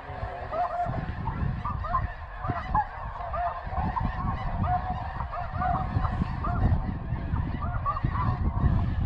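A large flock of snow geese calling, a continuous chorus of short, overlapping high honks, over a steady low rumble.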